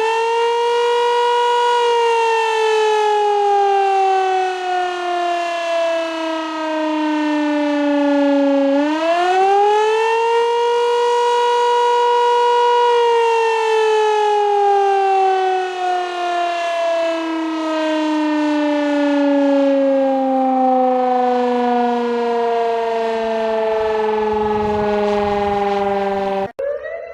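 Air-raid siren wailing as a warning of incoming missiles. Its pitch rises quickly, holds, then slides slowly down, and does this twice. It cuts off suddenly near the end, where a different steady alarm tone starts.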